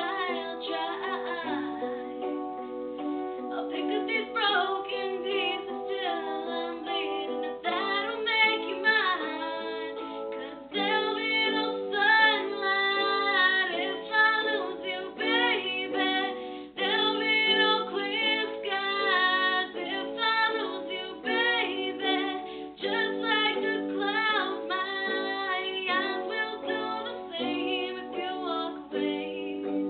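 A female voice singing a slow pop ballad over a plucked-string accompaniment, in continuous sung phrases.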